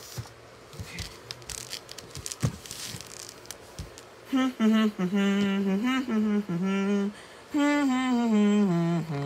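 A person humming a wordless tune in long held notes that step up and down, starting about four seconds in. Before it there are faint clicks and rustles of a plastic toy being handled.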